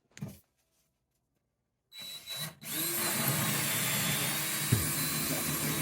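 Power drill boring a hole through a house wall: a short spin about two seconds in, then it runs steadily under load.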